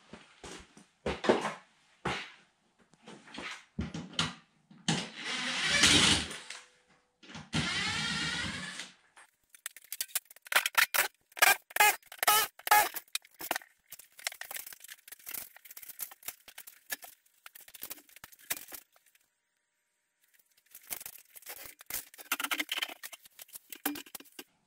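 Knocks, clanks and scraping from handling and moving a home-built steel unistrut snowmobile lift frame. There are two longer sustained noises about five and eight seconds in, and a fast run of sharp strikes in the middle.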